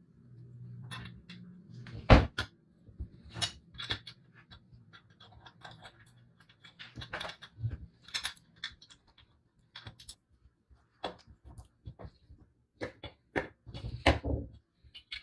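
Small metal parts of a vintage balance scale clicking and clinking as they are handled and fitted onto its painted base, with a sharp knock about two seconds in and a quick run of clicks near the end.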